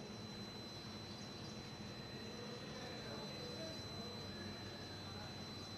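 Faint, steady background: an unbroken high-pitched tone over a low hum and light hiss, with no distinct handling noises.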